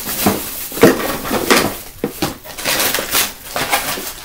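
Plastic slime containers being handled: irregular clicks, knocks and rustles, several a second, with a sharp knock about a second in.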